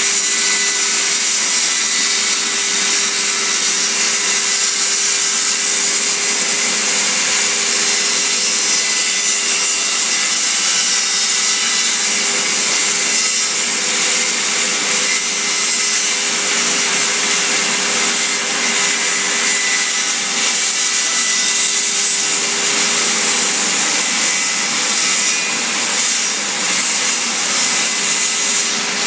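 Electric power tool running steadily on hardwood flooring: a continuous, even sawing noise with a faint steady motor hum under it.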